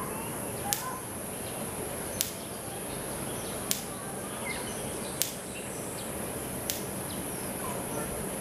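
Outdoor ambience with a steady high-pitched hiss and a sharp click that repeats evenly about every second and a half, with a few faint short chirps.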